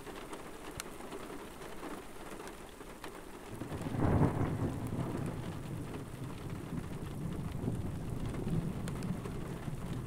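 Rain falling steadily with scattered faint drop ticks. About three and a half seconds in, thunder starts, loudest just after four seconds, then keeps rumbling low.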